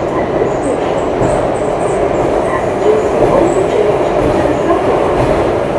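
Singapore MRT metro train heard from inside the carriage while running, a steady loud rumble of wheels and motors.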